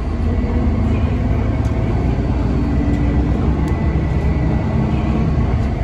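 City bus in motion, heard from inside the passenger cabin: a steady low engine and road rumble with a faint steady whine above it.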